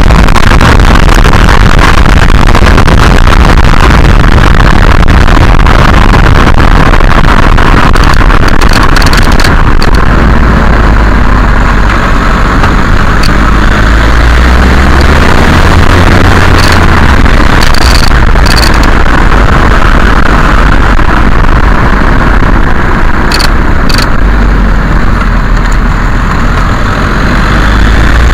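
VW Golf MK4 TDI on a test drive, heard from close to the suspension: loud, steady road and wind rumble with several short, sharp knocks in the second half, the knocking/rattling that the owner is trying to trace in the suspension.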